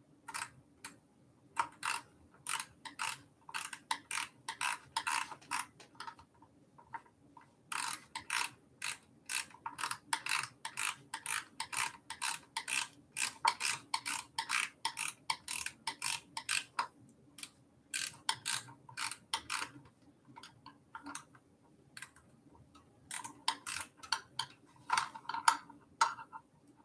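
Ratchet wrench clicking in several runs of rapid clicks, with short breaks, as a fender mounting bolt on the e-bike is turned in.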